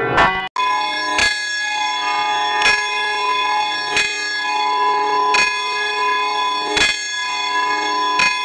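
A single church bell tolling, struck at a steady pace about once every second and a half, each stroke ringing on into the next. About half a second in, a different bell sound cuts off abruptly just before the tolling begins.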